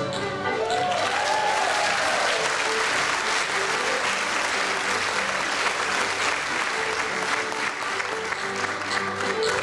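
Audience applauding after a step-dance number, with a single whoop rising and falling about a second in. Fiddle music comes back up near the end.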